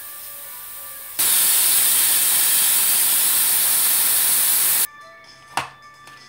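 Stainless steel pressure cooker venting steam through the valve on its lid: a loud, steady hiss that starts suddenly about a second in and cuts off abruptly about three and a half seconds later, followed by a single sharp click. The steam is let out to release the pressure before the lid is opened.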